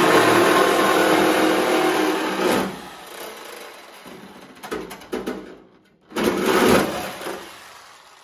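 Chicago Electric reciprocating saw running as it cuts along the spot welds of a Jeep YJ's sheet-steel inner wheel well. It runs for about two and a half seconds, stops, and runs again for about a second later on.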